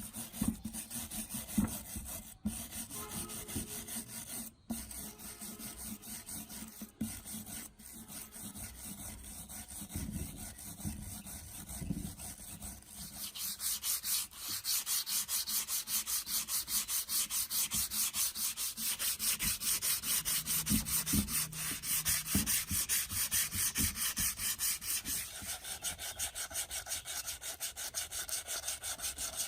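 Rapid, rhythmic back-and-forth rubbing strokes of hand sanding on a part of an old rusty fan, getting louder about halfway through.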